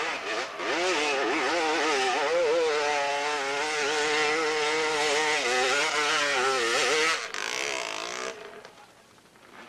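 Dirt bike engine revving hard under full throttle, its pitch wavering up and down. It cuts out about seven seconds in as the bike goes over, leaving a second of rushing noise.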